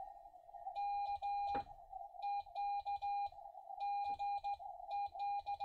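Xiegu G106 transceiver's CW sidetone: a single mid-pitched tone keyed on and off into Morse dits and dahs in four short groups, as the radio transmits, most likely a CQ call. The keying comes from a capacitive touch paddle the operator is not yet used to.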